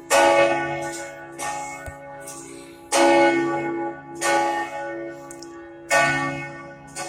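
Cathedral church bells ringing loud and close, struck in turn about every second to second and a half, each strike left to ring on under the next. The strongest strikes come at the very start, about three seconds in and about six seconds in.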